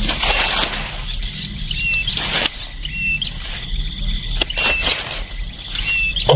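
A small bird gives a short chirp about every second and a half. Behind it runs a steady, evenly pulsing insect-like trill, which stops about two-thirds of the way through, and a low hum.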